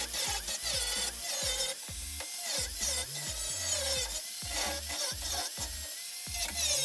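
Background music with stepped bass notes, gliding synth tones and a regular beat.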